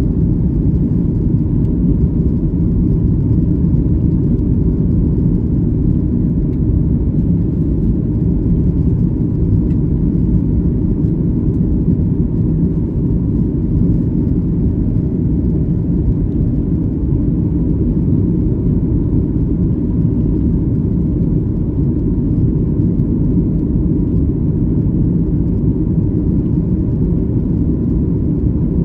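Steady, unchanging low rumble inside the passenger cabin of a Boeing 737 MAX 8, from its CFM LEAP-1B engines running, with a faint steady hum on top.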